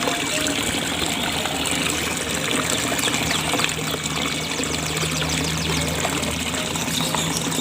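Steady rush of running water, like a trickle or small stream, with a low hum joining about three seconds in.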